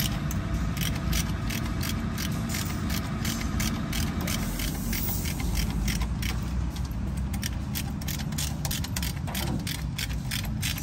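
Ratchet wrench clicking in quick runs of strokes while bolts on the AC compressor and its mounting bracket are turned, over a steady low rumble.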